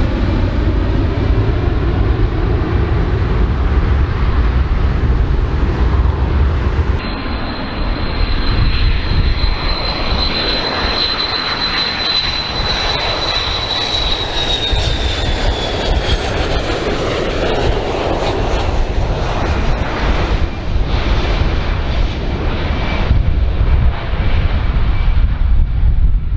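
Jet airliner engines roaring in flight: first a four-engine jet flying away, then, after a sudden change about 7 seconds in, a Boeing 727's low-bypass turbofans. Over the 727 a high steady whine sets in and falls slightly in pitch as the aircraft passes.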